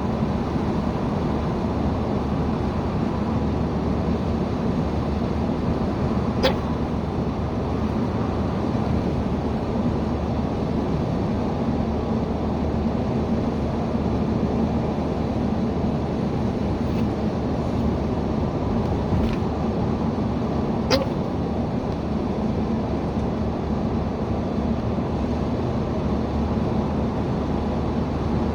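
Steady road and engine noise inside a moving car, broken twice by a single sharp hiccup, the two about fifteen seconds apart.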